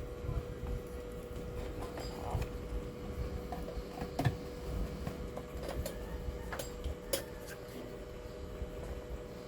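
A few scattered small clicks and taps, as of parts and tools being handled, over a steady hum.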